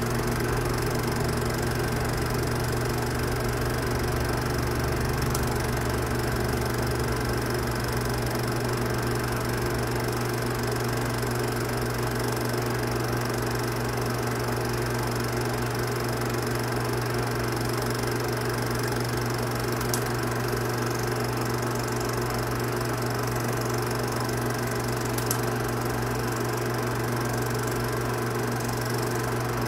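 Steady mechanical hum and whir of a film projector running, with two faint clicks in the second half.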